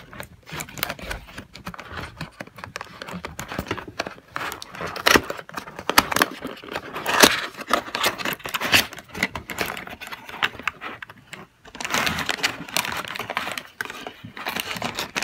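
Hands handling a cardboard box and its foam insert: a string of scrapes, rubbing and small clicks as a compartment in the packaging is pried open, busiest near the end.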